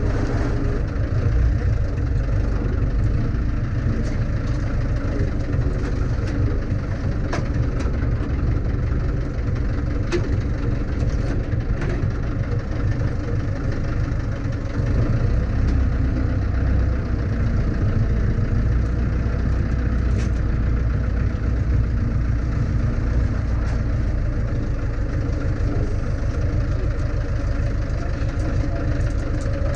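A Zetor 6711 tractor's four-cylinder diesel engine running steadily as the tractor is driven, heard from inside the cab. Occasional short clicks and knocks are heard over the engine.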